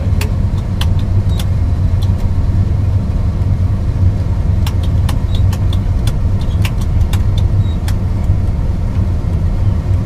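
Miller Nitro 5333 self-propelled crop sprayer running, heard from inside its sealed cab as a steady low drone, with scattered sharp clicks and rattles, most of them in the first second and a half and in a cluster from about the middle of the clip onward.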